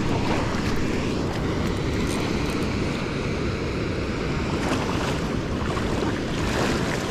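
Wind buffeting the microphone over the steady rush of river current.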